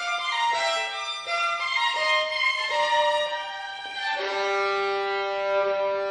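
Unaccompanied solo violin playing a line of short bowed notes, then from about four seconds in a held double stop, two notes sounding together.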